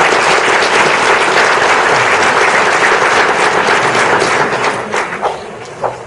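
Audience applauding, a dense patter of many hands clapping that thins out to a few last claps near the end.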